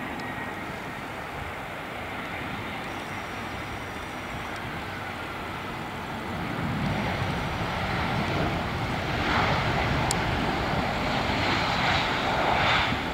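Airbus A320 jet airliner landing: a steady rush of jet engine noise as it touches down and rolls out on the runway. It grows louder and brighter from about halfway through.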